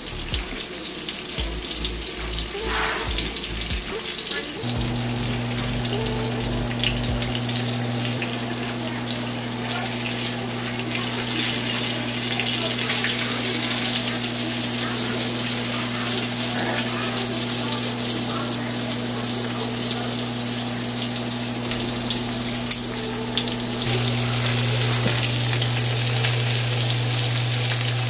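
Battered tilapia fillets frying in olive oil in a pan: a steady sizzling hiss. A low steady tone runs underneath from about five seconds in.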